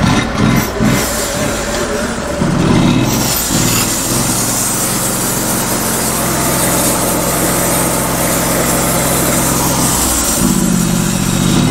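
Small gas engine of a Norwood portable sawmill running cold: it sputters unevenly for the first few seconds, settles into a steady run for about six seconds, then stumbles again near the end. The owner puts the rough running down to the engine being a little cold.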